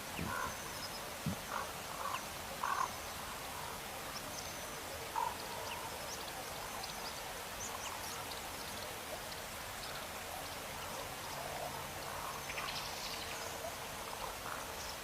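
Outdoor natural ambience: a steady hiss with scattered short animal calls, several brief low calls in the first few seconds and faint high chirps throughout.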